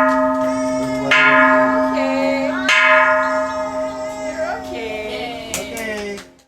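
Kansho, a Japanese bronze temple bell, struck twice, about a second in and again near three seconds in. Each strike rings on with a steady hum. The ringing cuts off suddenly near the end.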